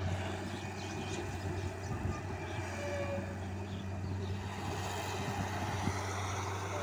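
Hitachi wheeled excavator's diesel engine running steadily as it works, a constant low hum, with a few brief knocks from the machine about two seconds in and near the end.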